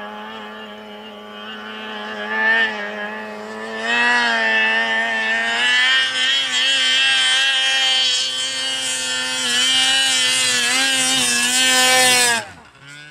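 Stock Polaris Dragon snowmobile's two-stroke engine running hard under throttle. It is fainter for the first few seconds and louder from about four seconds in, its pitch wavering as the throttle is worked. Near the end the pitch drops and the sound falls away sharply.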